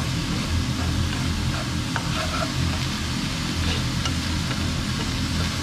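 Minced pork with diced onion and shiitake mushrooms sizzling in a nonstick wok as wooden chopsticks stir it, over a steady low hum.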